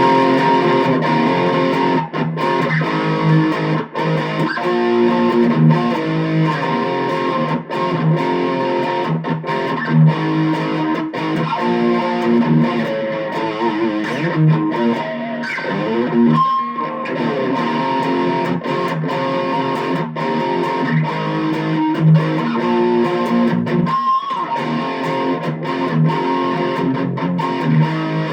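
Electric guitar played through a BOSS Katana Mini amp on its high-gain brown channel, with the amp's treble control being tried: a distorted riff of changing notes and chords, broken by two short pauses.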